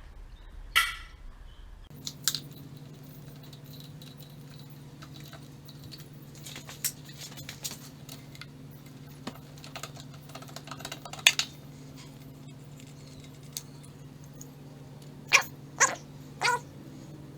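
A dog barks once about a second in. Then, over a steady low hum, come scattered clicks and clinks of small metal carburettor parts and tools being handled, with a few louder clinks near the end.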